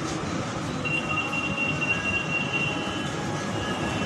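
Elevated metro train running, heard from inside the carriage: a steady rumble, with a thin high squeal from the wheels starting about a second in and breaking up near the end.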